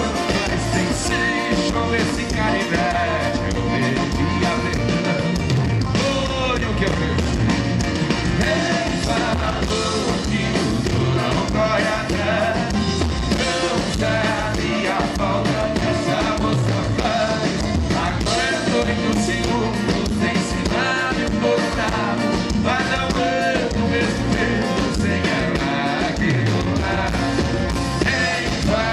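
Sertanejo duo singing with a full band of drums, bass and guitars, playing steadily throughout.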